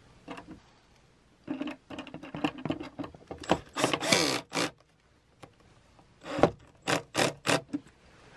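Cordless drill/driver driving the mounting screws that fasten an electrical outlet into its box, with the clutch dialed back low. It runs in several bursts, with a longer whine in the middle and four quick short blips near the end as the screws seat tight.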